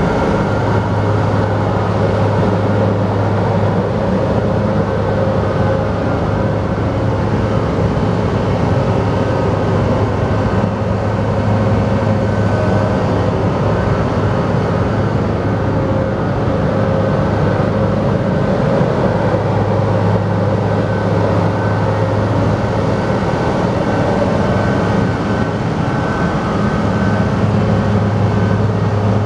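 Fuchs MHL340 material handler's diesel engine running steadily under hydraulic load, with a steady hydraulic pump whine, as the boom and elevating cab are worked. The deep engine note eases off for a while in the middle and then returns.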